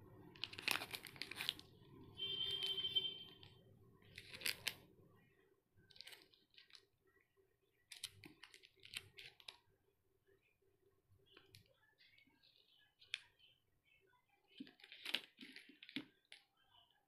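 Plastic sweet wrappers, a Cadbury Dairy Milk bar and Chupa Chups candy packets, crinkling in scattered bursts as they are handled and moved, loudest about a second in and again near the end.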